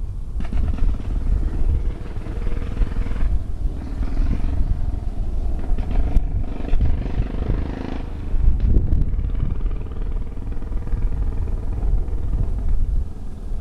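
Engine of a 1927 Sunbeam race motorcycle running in the distance, its note rising and falling, under a heavy rumble of wind buffeting the microphone.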